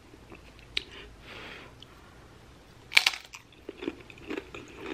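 Tortilla chip loaded with buffalo chicken dip bitten with one sharp crunch about three seconds in, then chewed with soft, muffled crunching.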